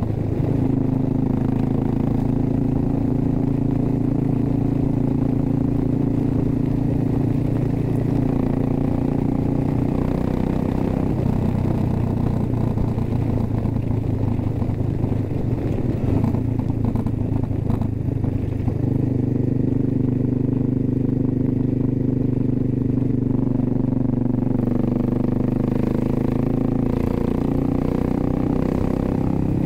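Suzuki S40 Boulevard's 650cc single-cylinder engine running at cruising speed on the open road. The engine note holds steady, wavers and shifts for several seconds in the middle, then settles back to a steady drone.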